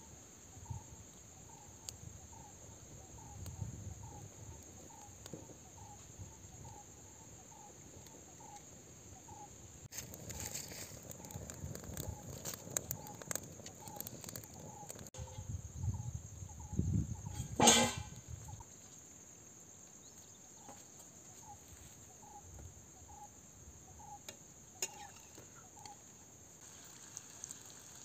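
Outdoor ambience: a steady high insect drone, with a bird repeating one short note about twice a second. About two-thirds of the way through there is a single sharp knock.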